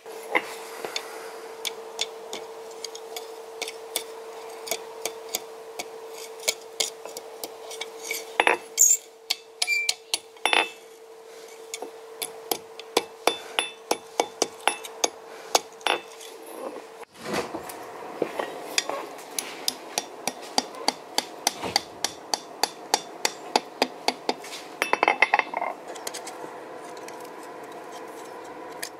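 Hammer blows ringing on hot steel against an anvil, forging the hook on the thin tail of a bottle opener held in tongs. The strikes come in quick irregular runs, with a steady hum underneath.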